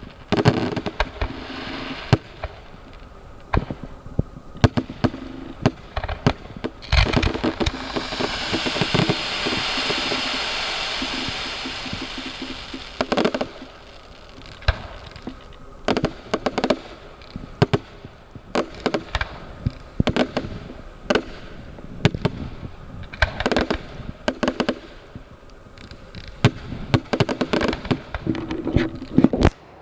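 Fireworks going off: a run of sharp bangs and crackles, with a long hiss that swells and fades in the middle.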